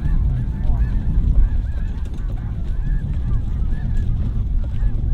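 A large flock of geese calling, many short honks overlapping continuously, over a steady low rumble.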